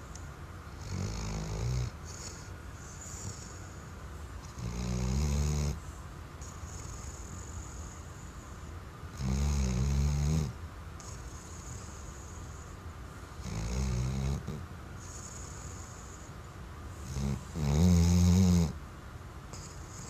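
Sleeping Weimaraner snoring: five deep, rattling snores about every four seconds, the last one the loudest, with a faint breathy hiss between them.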